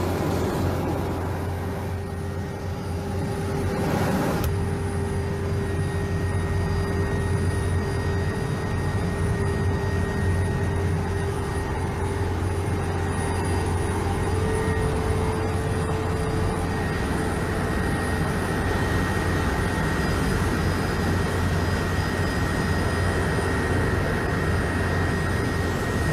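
A helicopter's turbine engines and rotor running, heard from inside the cabin: a steady, loud drone with a deep hum and a thin high whine that comes in about six seconds in.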